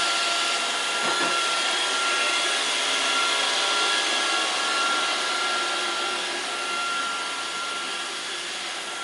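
Roomba robot vacuum running: a steady whirring hiss with a thin high whine, getting a little quieter over the last couple of seconds.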